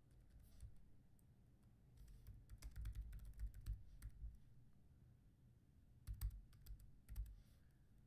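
Faint computer keyboard typing: clusters of keystrokes about two seconds in and again about six seconds in.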